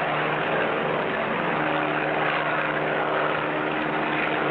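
Sound effect of a propeller airplane in flight, its engine running at a steady pitch and level.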